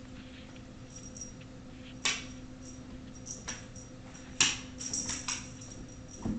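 Kittens playing with a wand toy: a string of sharp clicks and light metallic clinks, loudest about two seconds in and again just after four seconds, over a steady low electrical hum.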